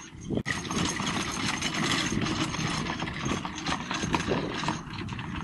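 Four-wheeled horse-drawn carriage rattling over turf behind a trotting horse, with hoofbeats mixed into the rattle. The sound cuts out briefly about half a second in.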